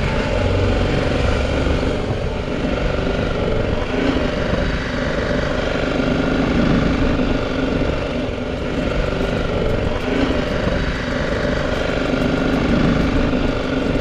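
BMW G310GS's single-cylinder engine running steadily as the motorcycle is ridden along a village road.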